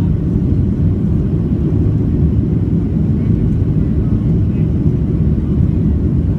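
Steady low rumble of a Boeing 737-700's CFM56 jet engines and airflow heard from inside the passenger cabin.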